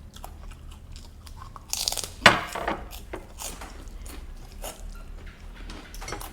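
Close-up chewing and crunching of food by a person eating, with a louder crunchy bite about two seconds in and small crackling chews through the rest.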